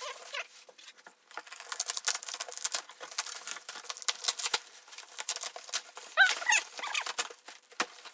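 Packaging being handled and pulled apart: dense crinkling and rustling with scattered clicks, and a brief high squeak about six seconds in.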